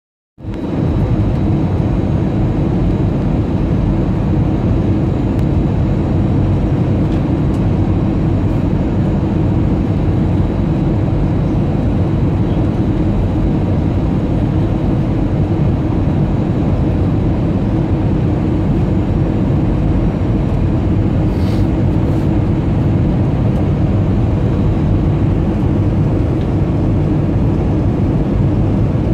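Steady, loud low cabin noise inside an Airbus A320 airliner: engine noise and rushing airflow heard from a window seat during the descent on final approach.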